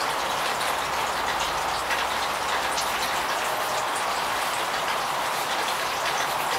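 Steady hiss of rain with faint, scattered tiny drop ticks.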